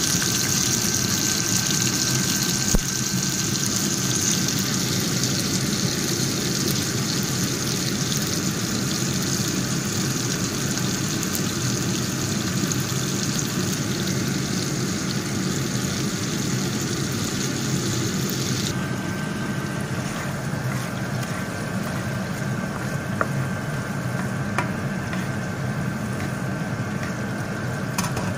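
Prawns sizzling in hot oil in a frying pan over a steady low hum. The sizzle's hiss drops away abruptly about two-thirds of the way through, leaving the hum, with a few light clicks near the end.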